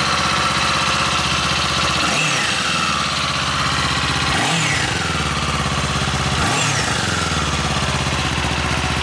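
Kawasaki Z500's parallel-twin engine idling, with three quick throttle blips about two seconds apart, each revving up and dropping back to idle.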